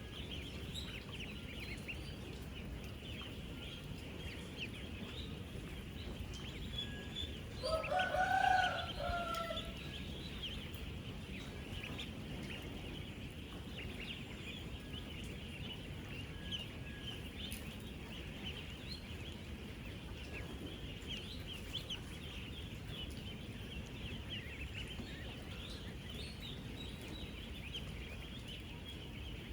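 A dense chorus of thousands of ten-day-old ducklings peeping all at once, a steady mass of short high cheeps. About eight seconds in, one louder, longer call from a single bird stands out for a second or so.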